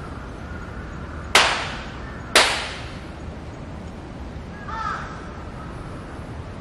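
Two sharp hand claps about a second apart, each trailing off in a short echo, the paired claps of Shinto shrine worship. A few seconds later a crow gives one short caw.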